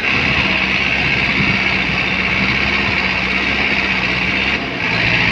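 Diesel engines of tractors and a JCB 3DX backhoe loader running steadily, heard close from a tractor seat, with a brief dip in level about four and a half seconds in.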